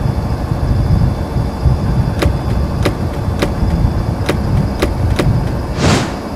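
Low, uneven rumble of a cartoon tank's engine as it moves. From about two seconds in come about seven sharp metallic clicks, roughly half a second apart, and near the end a short whoosh.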